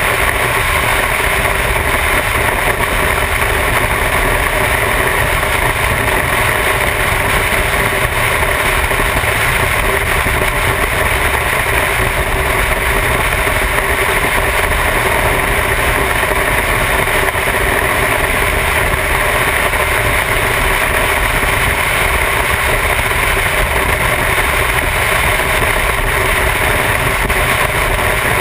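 Motorcycle engine running at a steady highway cruise, with wind rushing over the bike-mounted camera's microphone. The sound holds steady with no change in engine speed.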